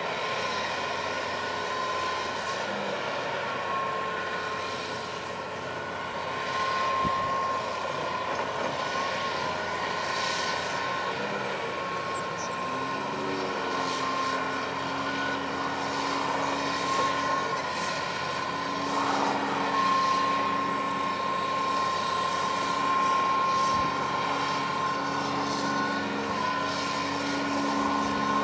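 John Deere 230C LC excavator's diesel engine running while it digs, with a steady high whine throughout; about halfway through the engine note rises a little and then holds steady, as the machine works under load.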